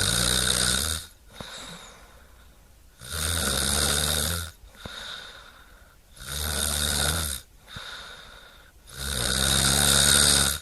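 Snoring: four loud snores about three seconds apart, each a low pitched vibration in the breath, with quieter breaths between them.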